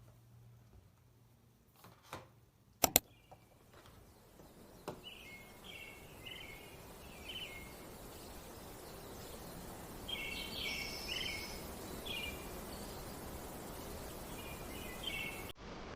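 Small birds chirping in short repeated phrases over a steady outdoor background hiss, after two sharp clicks about two to three seconds in.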